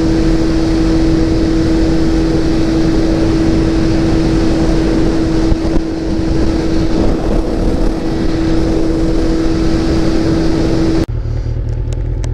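Motorcycle engine running at a steady cruising speed, holding one even pitch, under a heavy rush of riding wind. About eleven seconds in it cuts off suddenly to a much quieter low hum.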